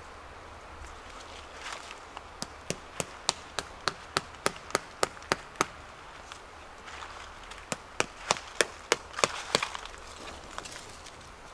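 Chopping: sharp, quick strikes at about three a second, a run of roughly a dozen, a short pause, then about seven more.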